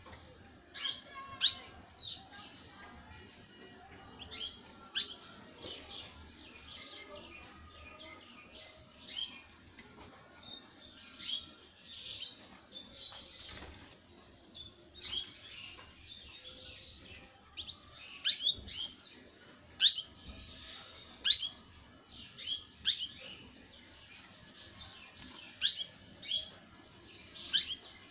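Young domestic canary chirping and twittering in short, broken bursts of high, quick sweeping notes, a second or two apart.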